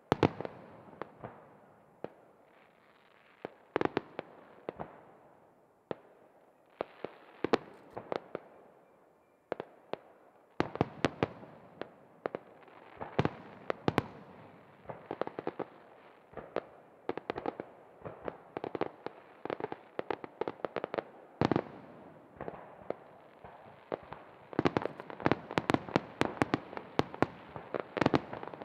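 Fireworks display: aerial shells and smaller fireworks going off in a quick irregular run of sharp bangs and crackles, with an echoing rumble between them. The bangs are sparse at first, come almost without pause from about ten seconds in, and are thickest near the end.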